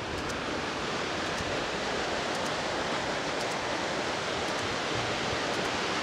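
Steady rush of water running at a canal lock, an even hiss that grows slightly louder.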